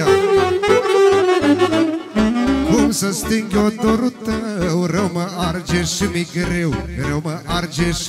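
Live Romanian folk band music: an instrumental interlude with a wavering melodic lead over a steady bass beat.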